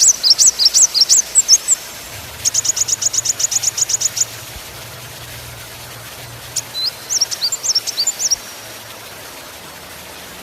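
Small songbird singing high-pitched phrases. The song opens with quick rising notes repeated about four times a second. A rapid, even trill of about a dozen notes follows from about two seconds in, then a short phrase of varied notes around seven to eight seconds in.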